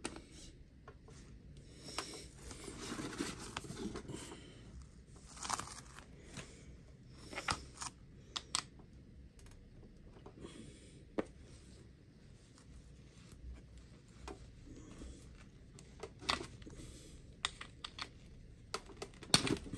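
Hands working a rubber tire on the plastic wheel of an HPI WR8 Flux RC car: scattered sharp clicks and scrapes, with a longer rustling, scraping stretch about two to four seconds in. Near the end a cloth towel rubs against the wheel.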